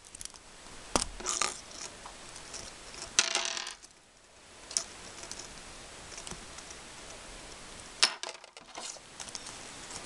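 Small hard plastic and metal parts of a Beyblade spinning-top toy being handled: scattered sharp clicks and a short clatter, with a brief rustle of packaging partway through.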